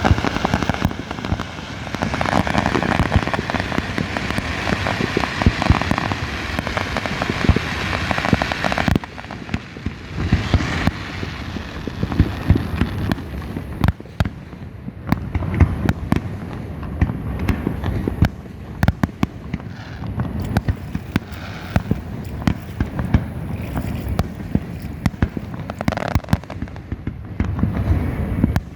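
Fireworks display going off: a dense run of crackling pops for the first nine seconds or so, then thinner scattered pops and bangs.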